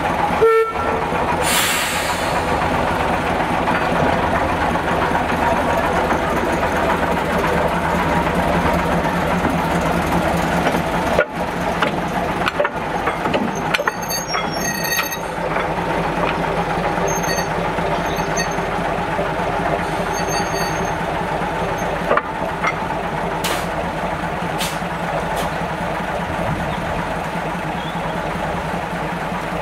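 Diesel engines of two small shunting locomotives, a green Planet and a yellow one, running steadily while coupled together. There is a short hiss of air about two seconds in.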